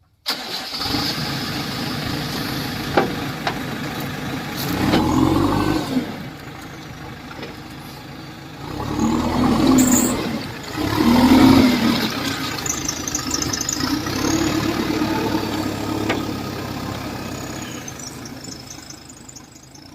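JCB 3DX backhoe loader's diesel engine running. It cuts in suddenly and rises three times as it revs, the last swell the loudest, then slowly fades.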